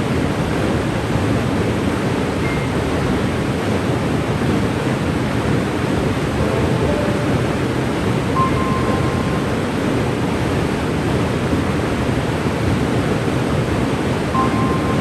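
Cane River Falls, a waterfall, rushing steadily, with a few faint short tones over the roar.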